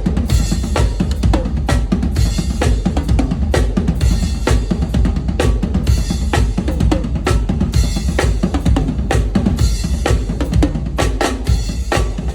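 Drum kit played in a steady, continuous groove: bass drum and snare strikes under cymbals.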